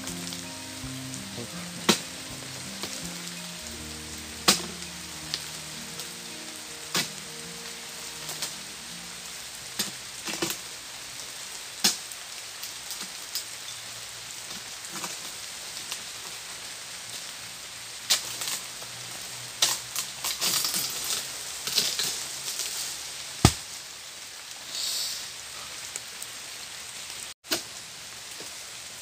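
Steady hiss of rain, with sharp cracks and knocks every few seconds as a long-poled harvesting sickle (egrek) cuts at an oil palm's fronds, coming thickest a little past the middle.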